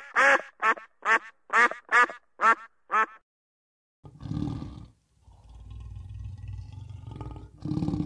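A ruddy shelduck gives about eight quacking calls in quick succession, ending about three seconds in. After a short pause, a leopard makes low growls, the loudest near the end.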